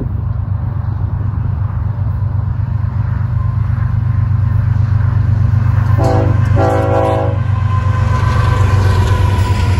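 Union Pacific diesel freight locomotives approaching and drawing close, their engines rumbling steadily and growing louder, with two short blasts of the lead locomotive's air horn about six seconds in.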